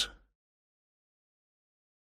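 The tail of a spoken word cuts off in the first moment, then complete digital silence.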